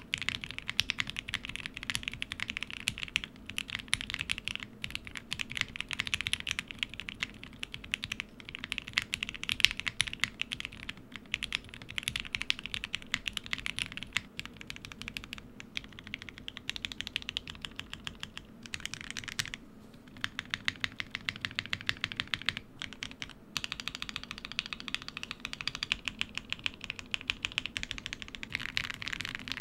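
Continuous fast typing on a gasket-mounted Blueberry65 custom keyboard fitted with Gateron CJ linear switches and GMK keycaps: a dense stream of keystroke clacks, with a couple of brief pauses past the middle.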